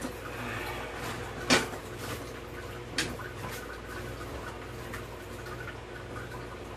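Sharp knocks of a bicycle wheel being fitted into the frame: one loud knock about a second and a half in and a lighter one about three seconds in.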